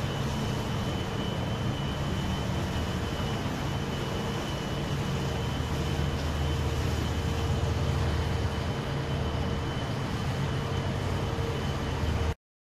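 Steady low engine drone of a river cruise ship, with a constant faint hum above it; it cuts off abruptly near the end.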